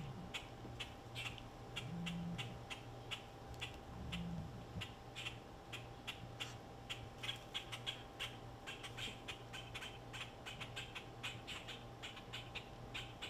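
Rapid, irregular high chirps from small animals outdoors, several a second, over a low steady hum.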